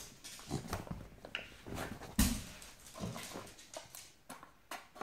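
A small knife scraping and cutting at the packaging of a face-cream jar, heard as an irregular run of short scratches, rustles and light knocks. The loudest knock comes about two seconds in.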